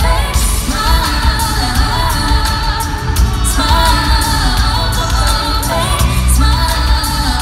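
Live pop music: a woman singing held, wavering notes over a loud backing track with heavy bass.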